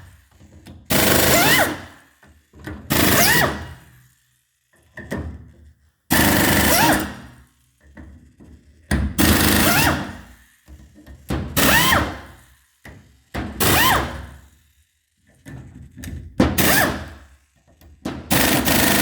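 Power impact tool with a Torx bit hammering on a cylinder head's cam cap bolts in short bursts of about a second, some nine times, a whine rising in each burst. Some of the bolts are too tight to break free this way.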